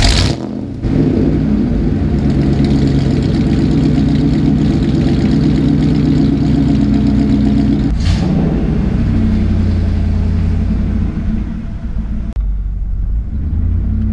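Ford truck engine catching and flaring as it starts, then idling steadily, heard close to the tailpipe. About eight seconds in the sound changes to the same engine heard from inside the cab, and it drops in level a little before the end.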